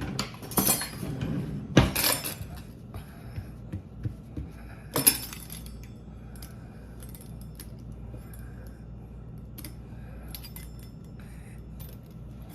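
Kitchen handling sounds: sharp clinks and knocks of utensils or dishes, several in the first two seconds and one about five seconds in, then only small ticks over a low steady hum.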